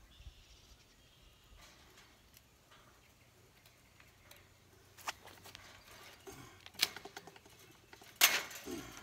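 Safety-wire pliers and wire clicking against chain-link mesh during a fence repair, a few sharp ticks, then a louder clatter of the chain-link panel near the end as it is grabbed and pulled.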